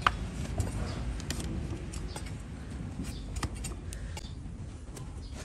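A broad flat hoof knife shaving horn from a donkey's hoof braced on a wooden block: irregular scraping cuts and clicks, with a sharp click right at the start.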